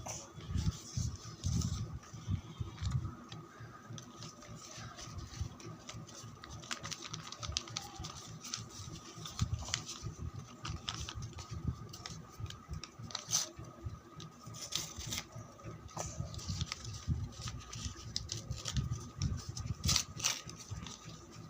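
Packaging and a boxed product being handled: irregular knocks, low thuds, rustles and sharp clicks, with a faint steady hum in the background.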